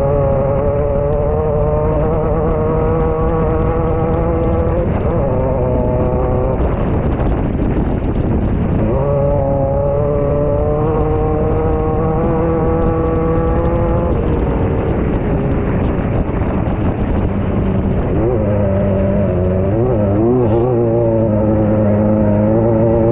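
Off-road race buggy's engine heard from inside the car, running hard at fairly steady high revs. About two-thirds of the way through it eases off for a few seconds, then revs up and down before climbing again near the end.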